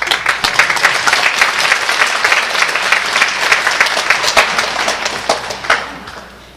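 Audience applauding in a concert hall, dense clapping that fades out near the end.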